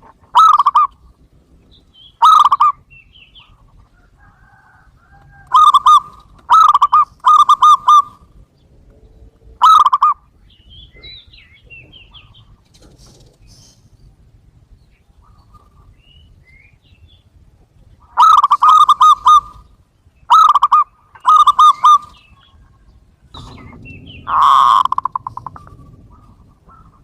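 Zebra dove (perkutut) cooing: short phrases of quick staccato notes near 1 kHz, about ten phrases with pauses between them, one of them longer near the end.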